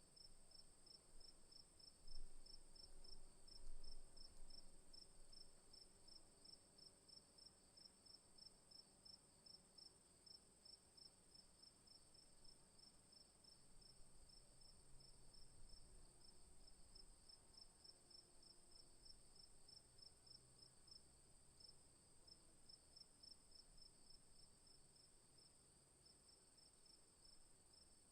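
Crickets chirping: a steady high-pitched trill runs under a second series of regular, rapid chirps. A faint low rumble sits beneath, with a couple of soft low thumps a few seconds in.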